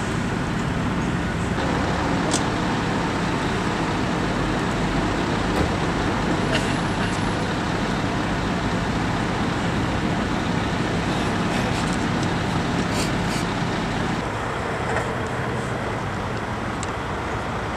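Steady road traffic noise with vehicle engines running, and a few faint clicks.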